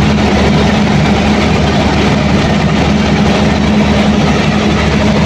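Caterpillar C15 inline-six diesel engine of a generator set running steadily at constant speed, loud. The mechanic suspects it is missing or misfiring.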